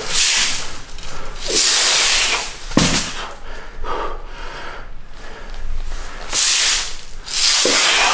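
A man's hard, forceful breaths, hissed out in about five loud bursts as he strains to press a heavy beer keg overhead.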